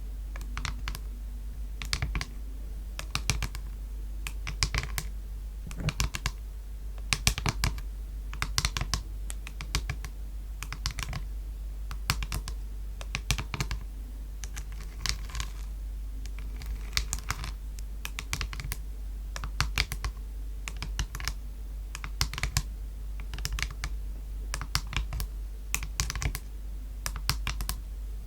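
Quick, irregular tapping on a palette: sharp clicks in rapid clusters, like typing on a keyboard.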